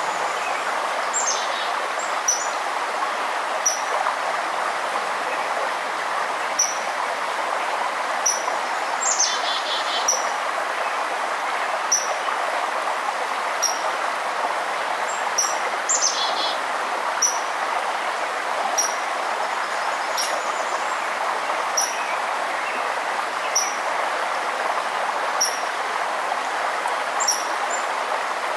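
Steady rushing of a forest river, with a bird repeating a single short high chirp about every one and a half to two seconds and another bird calling briefly twice.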